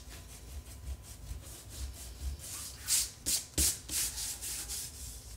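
Hand rubbing briskly over the surface of a painting on paper, lifting off dried masking fluid: quick scratchy strokes a few times a second, with a few louder strokes about three seconds in.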